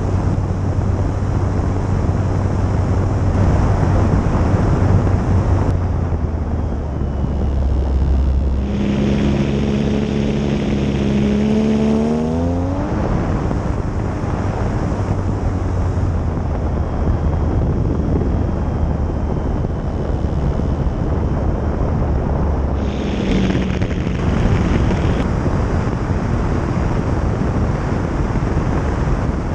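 RC model DHC-2 Turbo Beaver's motor and propeller running in flight under heavy wind rush on the microphone. About nine seconds in a stronger, higher hum comes in and glides up in pitch a few seconds later, then settles back to the steady low drone.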